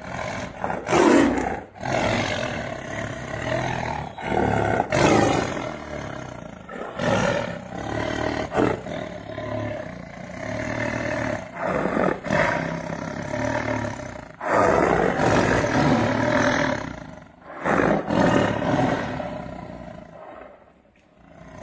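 Tiger roaring again and again, one loud call after another, fading out near the end.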